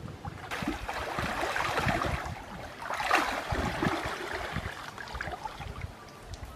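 Stream water splashing and sloshing as a person wades through it and stirs up the muddy bottom, in two louder spells, one from about half a second in and another around three seconds in.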